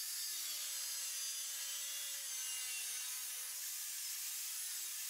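Angle grinder with a cut-off wheel cutting through a steel billet held in a vise: a steady grinding hiss over the motor's whine, which wavers slightly in pitch as the cut loads it.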